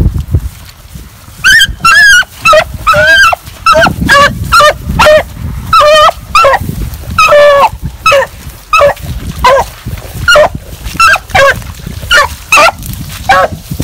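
Rabbit hound baying while running a rabbit's trail: a steady run of short, loud bawls, about one or two a second, starting about a second and a half in.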